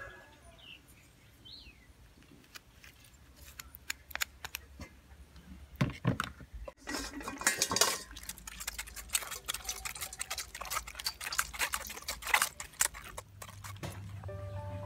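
Metal spoon scraping and clinking against a stainless wire-mesh strainer and bowl, pressing passion fruit pulp through the sieve: a quick, irregular run of scrapes and clicks starting about four seconds in. Soft piano music comes in near the end.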